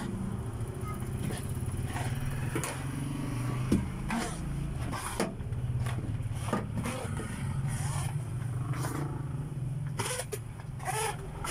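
A motor engine running steadily with a low hum. Over it come repeated knocks and scrapes of a mop working a wet floor.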